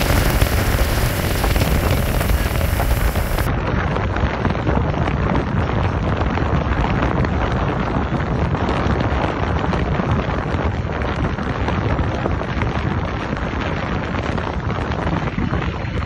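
Steady wind rush on the microphone aboard a motorboat under way, mixed with the hiss of water along the hull and the engine's drone.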